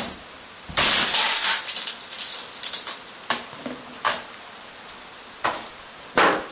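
A series of short hissing bursts: one longer burst about a second in, followed by five or six brief ones spread through the rest.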